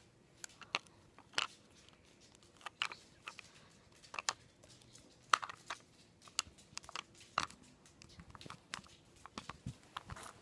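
Scattered small clicks and taps, irregular and fairly quiet, from a toy mummy sarcophagus replica being handled while a rubber band is worked off it.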